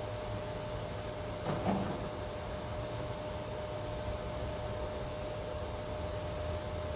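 Room tone during silent prayer: a steady hiss and low hum with a thin, steady high hum running through it, broken once by a short sound about one and a half seconds in.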